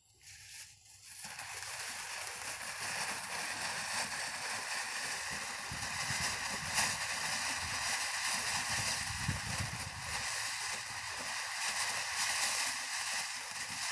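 Firecracker Fountain, a consumer firework fountain from Phantom Fireworks, catching about a second in and then spraying sparks with a steady hiss, with scattered crackles and pops.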